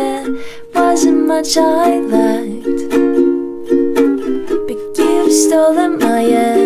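Flight UTS-35 Ether Ultra travel ukulele strummed in a repeated chord pattern, with a woman singing a melody over it; the playing dips briefly just after the start, then comes back in full.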